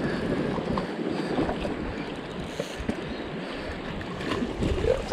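Sea washing against shore rocks, an even rushing noise, with wind buffeting the microphone in gusts.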